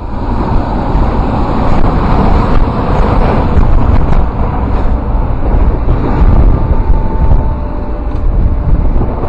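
Steady, loud roar with an uneven, gusting low rumble: wind buffeting the camera microphone. A faint steady hum comes in near the end.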